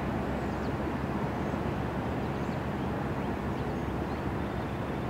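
Cars and a pickup truck driving across a railway level crossing, giving a steady low rumble of engines and tyres, with a few faint bird chirps over it.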